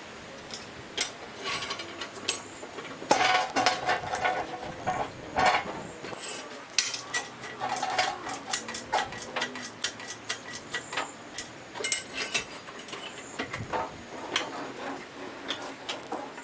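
Metal clanking, knocking and clinking from hands-on work moving a metal lathe and its lifting gear: irregular sharp knocks, some ringing briefly.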